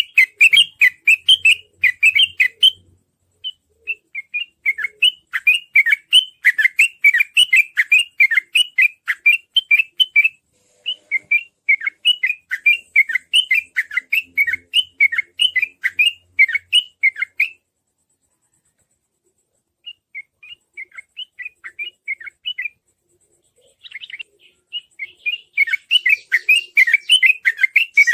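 Yellow-vented bulbul (trucukan) singing a fast run of repeated chirping notes, several a second, in long bouts broken by short pauses, with a silent gap of about two seconds past the middle. The dense rapid chirping is the 'ropel' song used as a lure to set other trucukan singing.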